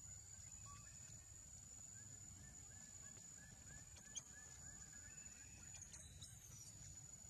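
Near silence: faint outdoor background with a steady thin high whine, a faint run of short chirps in the middle, and a single click about four seconds in.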